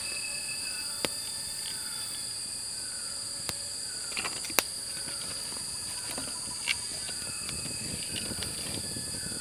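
Steady, shrill insect chorus of forest crickets or cicadas, with short falling bird whistles repeating in the background and a few sharp clicks or knocks.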